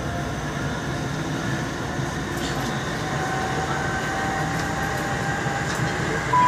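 Inside a moving passenger train pulling away from a station: steady rumble of wheels on the track, with faint whining tones from the drive that step up in pitch as it gains speed. Right at the end a clear chime tone sounds, the start of an onboard announcement.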